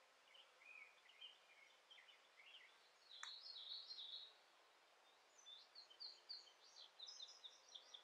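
Faint songbird song: a run of short chirps, then a louder phrase about three seconds in, and another quick run of higher notes near the end. A single sharp click comes just before the louder phrase.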